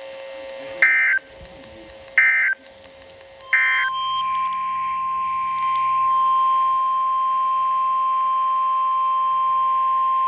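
Three short bursts of NOAA Weather Radio SAME digital data about a second apart, the end-of-message code closing the tornado warning. Then the 1050 Hz weather radio warning alarm tone comes on and holds as one loud, steady beep to announce the next alert, over a faint steady hum.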